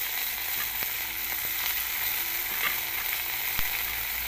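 Amora (hog plum) flowers sizzling steadily in hot oil in an iron wok, freshly added and frying. A few sharp ticks come through the sizzle, the loudest near the end.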